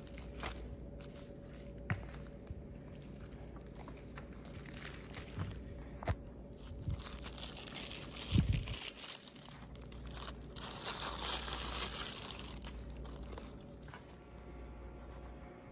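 The thin, crinkly reflective plastic sheet of a SOL emergency bivvy rustling and crackling as it is unrolled and shaken open. A dull thump comes about eight seconds in, and the crinkling is thickest a little after.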